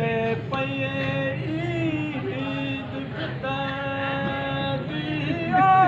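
A man chanting a Shia mourning lament (noha) over a loudspeaker, holding long drawn-out notes that slide between pitches, with short breaks between phrases.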